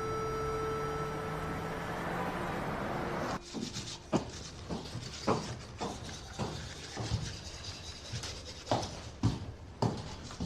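Soft background music with held tones fades out about three seconds in. A series of soft, irregular knocks and clicks follows, about one or two a second.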